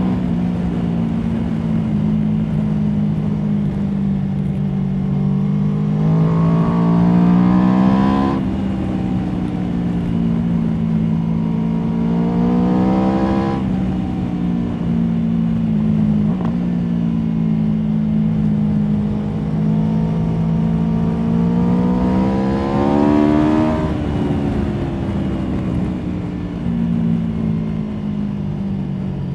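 Aprilia Tuono V4 motorcycle's V4 engine running under way, pulling up through the revs three times with the pitch climbing, each pull ending in a sudden drop in revs, over steady wind and road noise.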